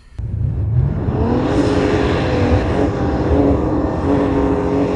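An off-road 4x4's engine revs up about a second in, then runs steadily at high revs under full throttle as it tries to climb a dune of very soft, loose sand.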